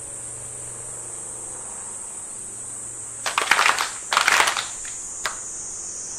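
Cicadas buzzing steadily in a high, even drone, with two loud bursts of noise a little past halfway and a short sharp click about a second later.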